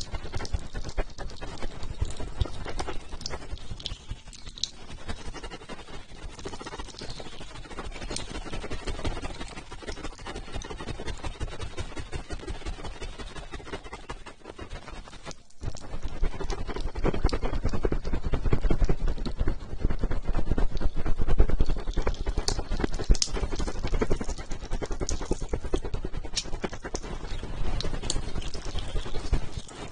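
Close-miked ASMR trigger sounds: a fast, dense run of wet clicks and taps right at the microphone. There is a brief break about halfway through, and the sounds are louder after it.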